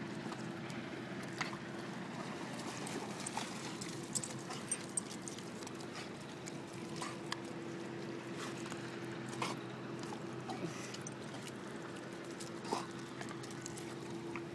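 A pit bull puppy swimming in with a stick and clambering out onto a pebbly, rocky beach: water sloshing and dripping, with scattered sharp clicks of stones and stick knocking on rock. A steady low hum runs underneath.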